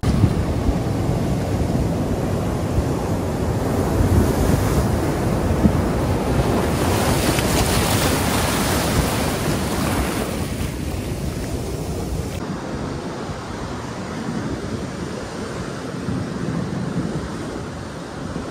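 Ocean surf breaking and washing up the shore, with wind buffeting the microphone. A wave surges in and hisses up the beach about seven to ten seconds in.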